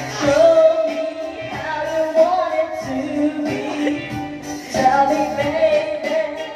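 A woman singing karaoke into a microphone over a pop backing track with a steady beat.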